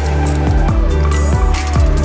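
Electronic background music with a heavy bass line and repeated quick downward-sliding bass notes.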